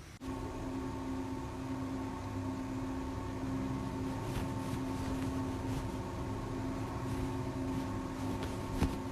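A steady mechanical hum at a constant pitch, like a small appliance motor running, starting suddenly just after the beginning.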